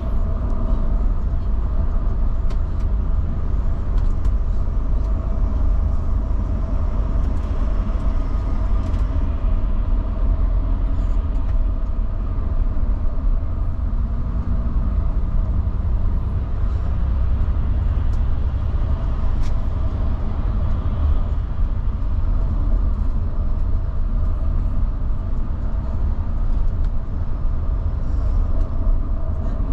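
Mercedes-Benz Travego coach driving at cruising speed, heard from inside at the front of the cabin: a steady low engine and road rumble with a constant hum over it.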